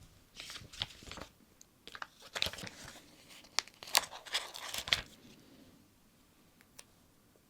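Sticker being peeled off its backing sheet and handled against paper: crackly, crinkly peeling and rustling for about the first five seconds, then quieter with a couple of faint taps.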